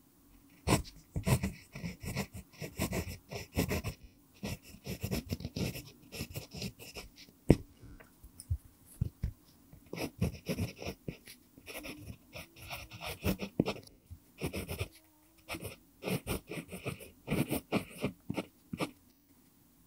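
Pentel PG5 mechanical pencil writing cursive on lined paper: quick scratchy strokes of the lead, beginning about a second in, with short pauses between words.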